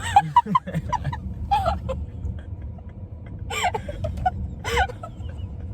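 A person's short, high-pitched wordless cries, four or five in all, each rising and falling in pitch, over a steady low rumble inside a car.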